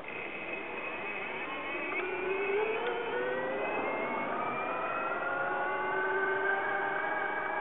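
A vehicle's motor whining as it speeds up, several tones climbing together in pitch for the whole stretch.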